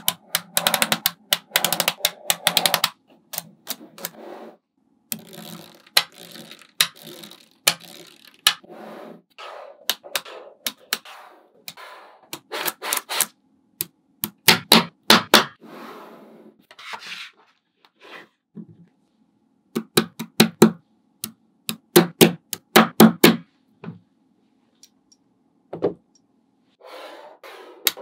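Small magnetic balls clicking together in quick runs of sharp snaps as they are set in place, with softer rattling stretches between the runs.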